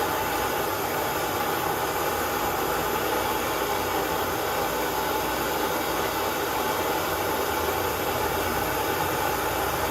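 Steady, even hiss of the burner flame in a one-brick forge while a thin steel lock pick heats up before quenching.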